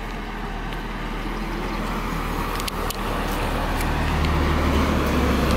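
Road traffic noise, with a truck's low engine rumble growing louder as it approaches during the second half.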